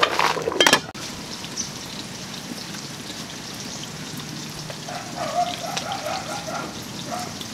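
Large stockpot of soup boiling over a wood fire, giving a steady watery hiss with small crackles. A louder stretch in the first second stops abruptly.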